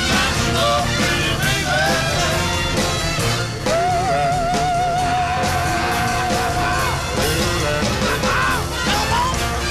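Music: a rock and roll song with a singer, who holds one long wavering note about four seconds in.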